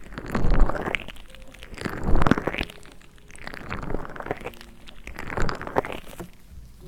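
Close-up rubbing and crackling against an ASMR microphone in four swells, each about a second and a half apart.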